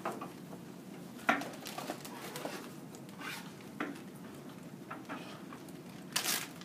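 Scattered light knocks of knives on wooden cutting boards, and a plastic bag crinkling briefly near the end.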